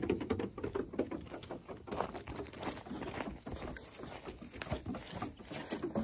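Pygmy goats moving about, with an irregular light pattering and clicking.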